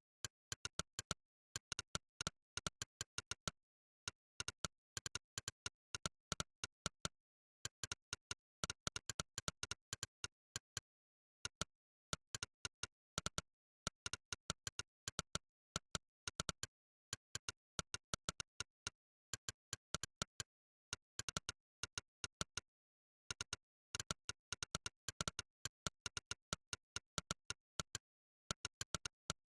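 Monkeytype's synthesized 'click' keypress sound effect, one sharp click per keystroke, in quick runs of several clicks a second broken by short pauses between bursts of typing.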